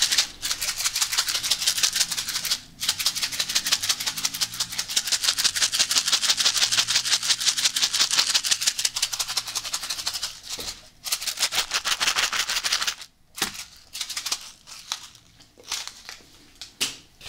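Small white sachet shaken close to the microphone, its contents rattling in fast continuous shakes, with brief pauses about three seconds and eleven seconds in. The rattling turns into sparser rattles and rustles after about thirteen seconds.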